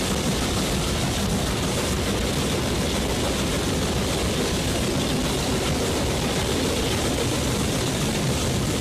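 Steam locomotive and its train running through a brick-lined tunnel: a loud, steady, dense noise of the engine working and the wheels on the rails.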